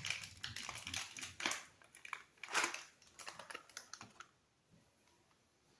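Rapid light clicks, taps and rustles of a spice container and tablespoon being handled, going quiet after about four seconds.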